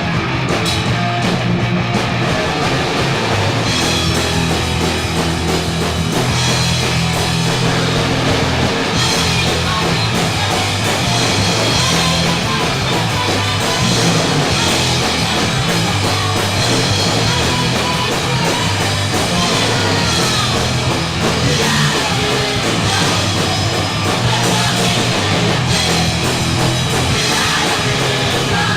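Punk rock band playing live, with guitar and a drum kit going at full volume without a break.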